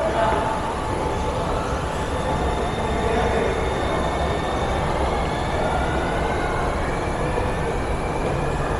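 New Taipei Sanying line MRT train running over a steady rumble, with an electric motor whine that rises in pitch over the second half.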